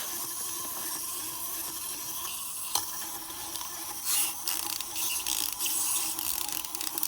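Clockwork motors of small plastic wind-up toys whirring as they run, with light clicks and taps from their moving parts against the surface. A sharper click comes about 3 s in, and a cluster of taps about a second later.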